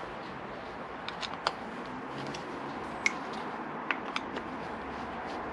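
Screwdriver clicking against a Mikuni motorcycle carburettor while its float bowl screws are done up: about half a dozen small, sharp, scattered clicks over a steady faint hiss.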